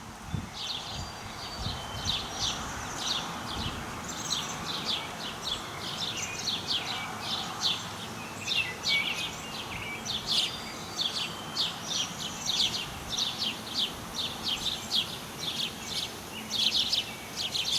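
Birds chirping: a dense, continuing run of short high notes, several a second, over a steady background hiss.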